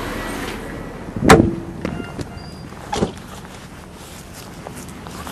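A vehicle door slamming shut about a second in, a single heavy thud with a short low ring after it, followed by a smaller knock about two seconds later.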